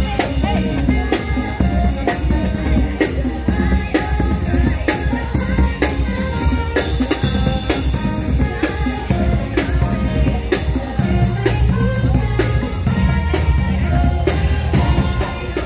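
Upbeat parade music with a steady, driving drum beat and heavy bass, played loud.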